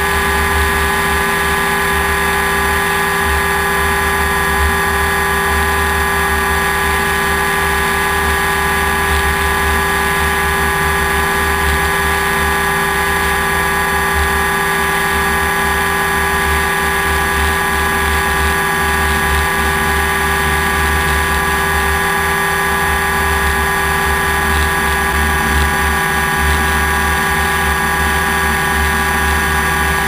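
Multirotor drone's motors and propellers whining steadily, heard through the camera on board, with a flickering wind rumble on the microphone underneath.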